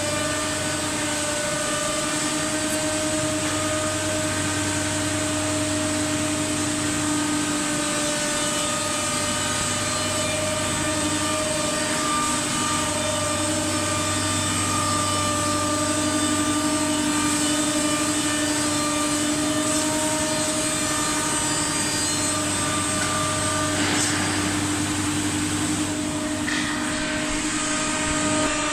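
CNC nesting router running, its spindle giving a steady high whine with overtones over a loud hiss of machining, with a few short noisy bursts near the end.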